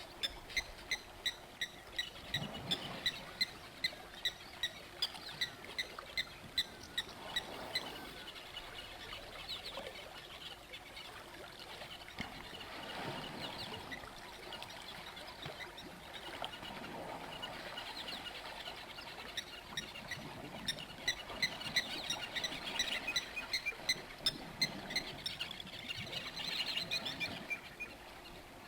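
A bird calling with short, evenly repeated notes, about two a second, for the first eight seconds or so and again from about twenty seconds in, over a faint natural background.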